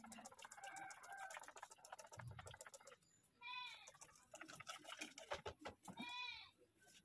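Faint, fast clicking and ticking, with an animal calling twice in a short bleat-like cry, once about halfway and again near the end.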